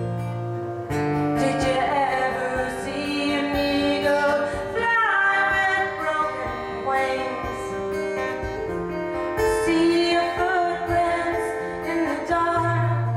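A woman singing to her own acoustic guitar. The guitar plays alone for about the first second before her voice comes in, and carries on alone again just before the end.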